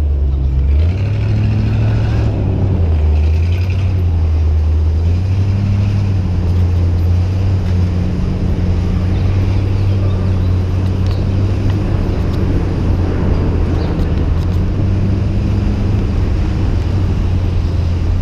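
Steady low rumble of city street traffic and moving-air noise heard from a bicycle riding along the street, with no sharp events.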